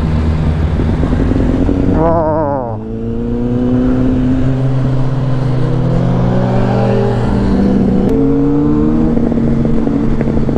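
Onboard sound of a motorcycle engine under acceleration: after a brief wavering note about two seconds in, the engine note climbs steadily for several seconds, drops at a gear change about eight seconds in, then holds steady. Loud wind and wet-road rush runs under it throughout.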